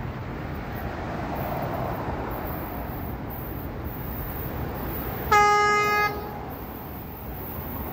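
Horn of an approaching UTS railcar train sounding once, a single steady blast of just under a second about five seconds in, over steady wind noise on the microphone.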